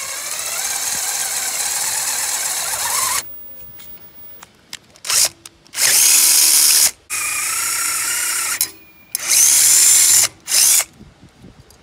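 Small 12-volt cordless drill boring through the metal end cap of an Indian FTR1200 muffler with a twist bit, widening a pilot hole. One run of about three seconds, a pause, then several shorter runs in quick succession from about the middle to near the end, each with a steady motor whine.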